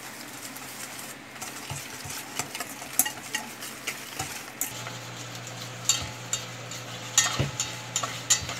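Wire whisk stirring a thick, wet paste of cocoa powder, sugar and hot water in a stainless steel bowl, its wires scraping and clicking irregularly against the metal.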